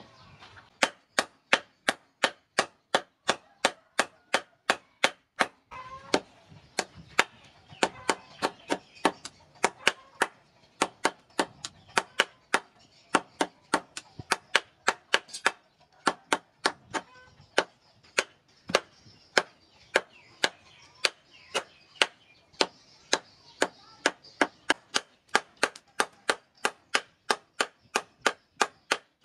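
Hand hammer striking a red-hot katana blade on a steel block anvil: a steady run of sharp blows, about two a second, with a short pause about six seconds in.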